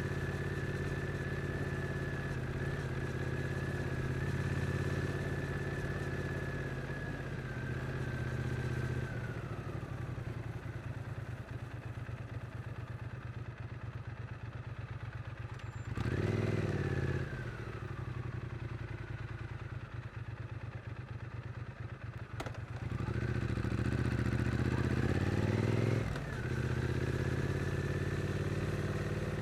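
Triumph Street Twin's 900 cc parallel-twin engine ridden gently in town: a steady cruising note, then a quieter stretch with an even pulsing beat. About 16 s in it picks up briefly and falls away, then from about 23 s it rises steadily, drops sharply at a shift near 26 s, and settles back to a steady cruise.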